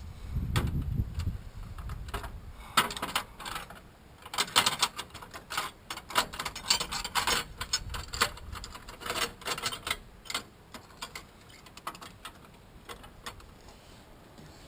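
Ratchet wrench clicking in quick runs as bolts are backed out on an engine, with metal clinks of tools and parts. A low thump comes in the first second or two.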